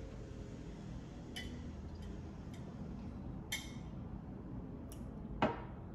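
A few faint, sharp clicks and light clinks of a drinking glass and tableware being handled at a meal, about five in all, the loudest near the end, over quiet room tone.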